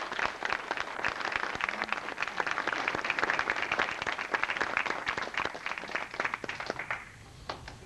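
Audience applauding, with dense clapping that dies away about seven seconds in, followed by a few last scattered claps.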